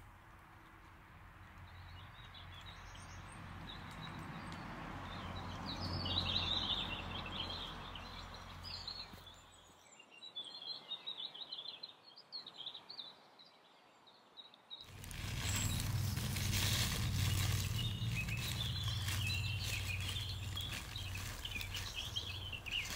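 Several small birds chirping and singing over steady outdoor background noise; the background noise drops away for about five seconds in the middle, leaving only the birdsong, then comes back louder.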